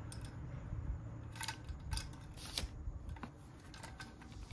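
A handful of separate light metallic clicks as a timing chain is fitted into a scooter engine's crankcase half, its links and the parts around it tapping against the case.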